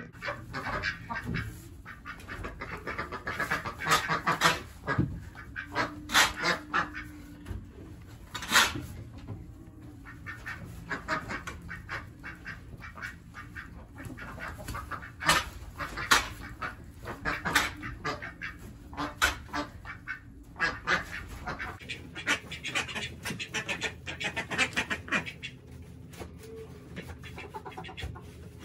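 Chickens clucking in a coop while a shovel digs into packed old bedding and manure on the floor, making repeated short scrapes and knocks.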